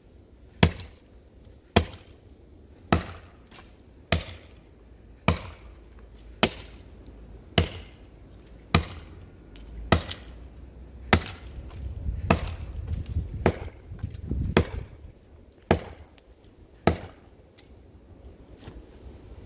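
Council Tool Woodcraft Pack Axe chopping into a dead pine trunk: about fifteen steady, evenly spaced strikes, a little more than one a second, that stop near the end.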